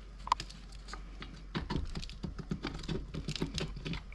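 Quick small clicks and taps of hands working parts loose on a Stihl FS45 string trimmer's engine, freeing the carburetor and throttle cable: one sharp click near the start, then a fast run of clicks.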